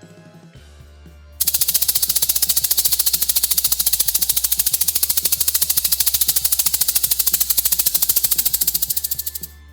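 Snake sound effect: a fast, evenly pulsing rattling hiss that starts about a second and a half in and cuts off shortly before the end, over a steady low hum.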